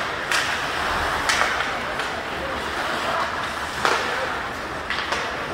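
Ice hockey game sound in an arena: about four sharp clacks of stick, puck or boards over a steady wash of crowd voices and rink noise.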